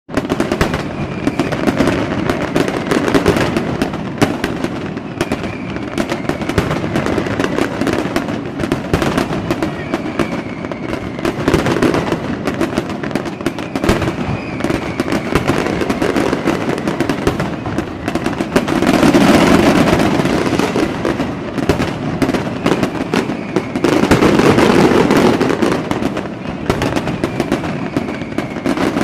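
Fireworks going off in a dense, continuous barrage of crackling and popping, with faint falling whistles recurring every few seconds. The barrage swells louder twice, about two-thirds of the way through and again near the end.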